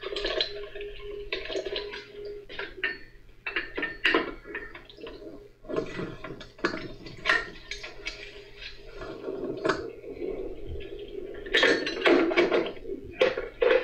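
Irregular metal taps, knocks and clinks of a hammer and screwdriver working at the steel front axle hub housing of a Kubota B3030 tractor, prying the housing open, with the heaviest run of knocks near the end. A steady wash of rain runs underneath.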